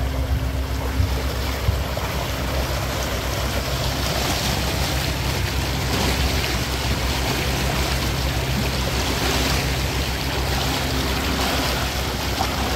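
Water trickling and churning in the wake of a Sunpower 44 solar electric catamaran under way, a steady wash with a low even hum beneath it.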